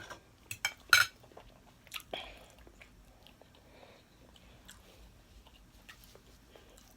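Close-miked chewing of a mouthful of chicken pot pie, with a few sharp clicks in the first couple of seconds, the loudest about a second in, then quieter chewing.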